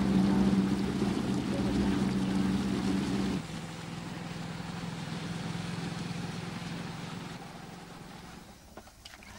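Motorboat engine running with a steady low hum over a hiss. It drops suddenly to a quieter, thinner hum about three and a half seconds in, then fades near the end.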